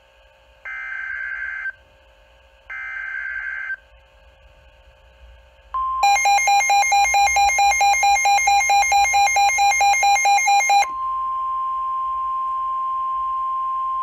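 NOAA weather radio alert on a Midland S.A.M.E. weather radio. First come two one-second bursts of warbling SAME data tones, the encoded header of a Tornado Warning. About 6 s in the steady 1050 Hz warning attention tone starts, with the radio's own loud pulsing alarm over it at about four beeps a second. The alarm cuts off about 11 s in when the weather/snooze button is pressed, leaving the steady tone alone.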